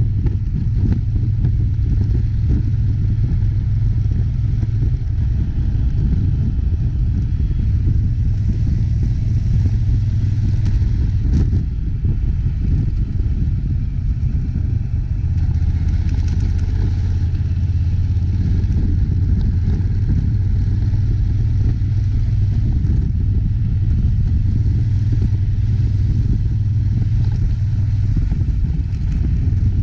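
A vehicle running steadily with a low rumble; the low tone drops slightly about halfway through.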